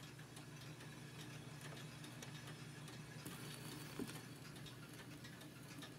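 Surface noise of a 78 rpm shellac record played on a Garrard changer, the stylus running in the lead-in groove: a steady hiss with frequent crackles and clicks over a low hum, and one louder pop about four seconds in.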